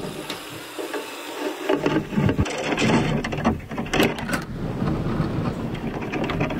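Wind rumbling on the microphone, with a few knocks and rattles from rigging and gear being handled on deck.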